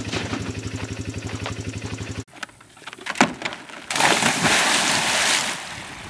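An explosion set off in a pond: a sudden blast, then about two seconds of rapid, even pulsing. About four seconds in comes a loud splash, and water churns for about two seconds.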